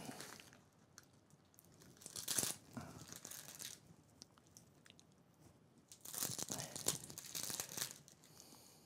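Plastic crinkling as it is handled, in two bursts: a short one about two seconds in and a longer one about six seconds in.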